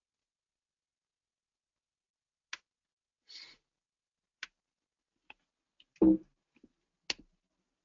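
Near silence broken by a few sharp computer clicks, a mouse or keyboard being worked over the presenter's microphone. About six seconds in comes one louder, brief low thump.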